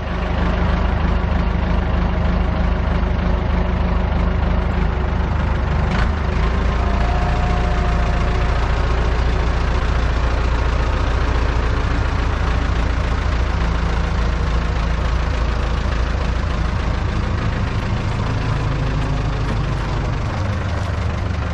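Forklift engine running steadily, with one sharp knock about six seconds in and the engine note changing near the end.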